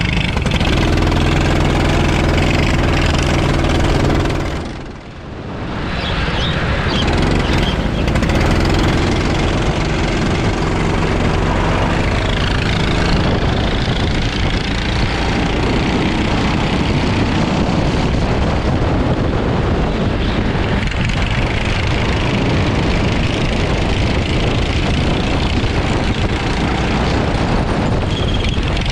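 Go-kart engine running hard on an onboard camera, under a broad rushing hiss from wind and the wet track. The sound drops away briefly about five seconds in, then builds again.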